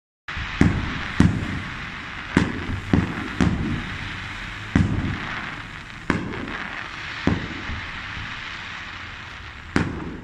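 Aerial firework shells bursting: about nine sharp bangs at irregular intervals, each trailing off in a rolling echo, over a steady hiss between them.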